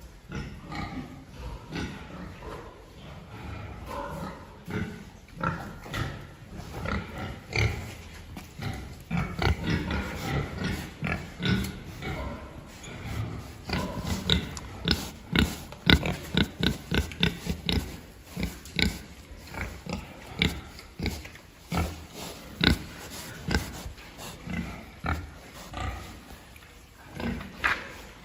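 Pigs grunting in a pig barn, a dense run of short, sharp sounds that is busiest in the middle.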